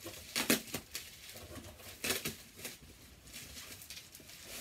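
Packaging being handled as a vinyl record is unwrapped from bubble wrap: scattered crinkles and light taps, bunched about half a second in and again around two seconds in.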